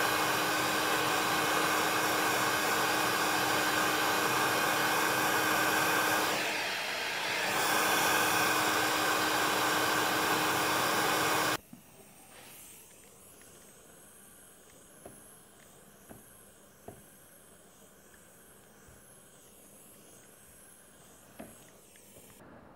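Soldering iron used to weld kayak polyethylene, blowing steadily like a hair dryer with a steady hum, dipping briefly midway, then switched off about eleven seconds in. Afterwards only faint small clicks.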